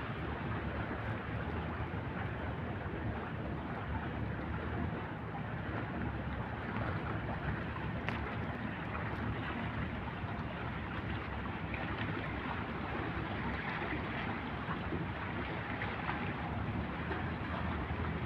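Steady wind buffeting the microphone, a low rumble over a soft outdoor hiss.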